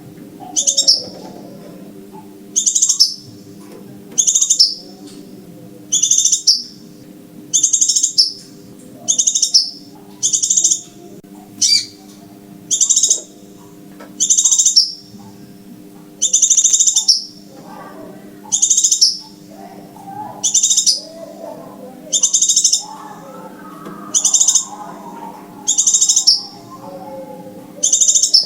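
Crimson sunbird calling: loud, short, high chirping phrases repeated about every one and a half seconds, over a faint steady low hum. It is a lure recording used to call sunbirds in to a trap.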